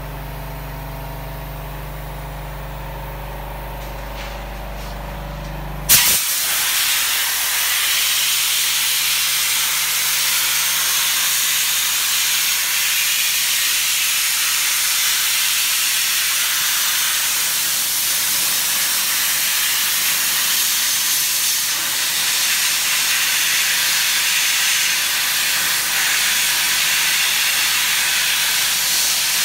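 Sandblaster nozzle blasting rusted steel reinforcement bars and crumbling concrete on a ceiling slab, a loud steady hiss of air and abrasive that starts abruptly about six seconds in. Before it, only a low steady machine hum.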